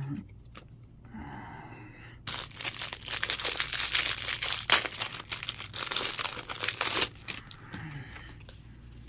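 Clear plastic wrapper being torn open and crinkled off a stack of baseball trading cards. The crackling starts about two seconds in and lasts about five seconds, then drops to quieter card handling.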